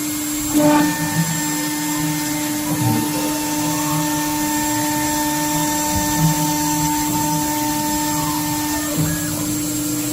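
CNC router spindle running steadily while milling aluminium, a constant whine with a higher cutting tone that slides in about half a second in and fades out near the end.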